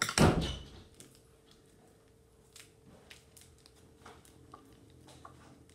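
Plastic packaging rustling and crinkling as it is handled, with one loud crinkle or knock just after the start and then scattered small clicks and rustles. A faint steady hum sits under it.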